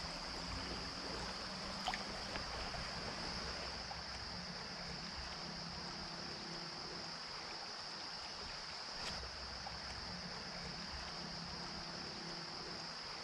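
Shallow creek running steadily over a gravel riffle, with a steady high insect chorus, typical of crickets, above it.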